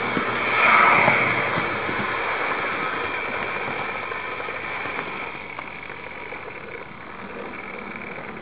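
Electric model train running along its track, heard from a camera riding on the train: a steady running noise of motor and wheels. It swells briefly about a second in, then slowly fades, with a couple of faint clicks about halfway through.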